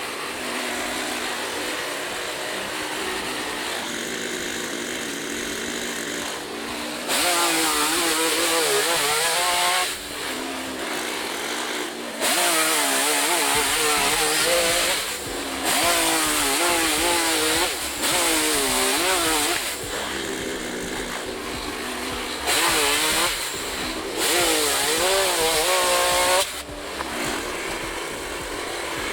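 Gasoline chainsaw idling between cuts and revving to full throttle about six times for a few seconds each, cutting up wooden pallets; in each cut the engine pitch wavers up and down as the chain takes the load.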